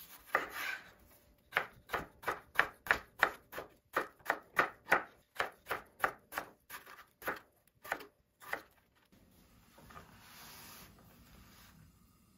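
Chef's knife slicing a potato on a bamboo cutting board: about two dozen crisp chops, three or four a second, each as the blade goes through the potato and hits the board. The chopping stops about nine seconds in, followed by a quieter brushing as the slices are handled.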